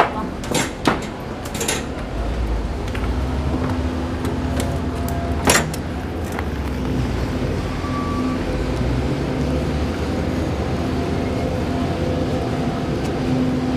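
Steady mechanical hum of aircraft ground equipment on an airport apron, with a low rumble and a few held tones. In the first two seconds come sharp clanks of footsteps on a metal airstair, and one more sharp knock falls about five seconds in.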